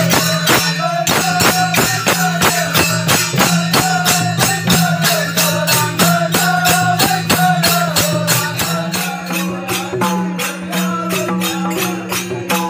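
Konkani naman folk music: two-headed barrel drums (dholki) beating a fast, even rhythm of about four strokes a second, with small hand cymbals ringing on the beats. A melody wavers over a steady low drone.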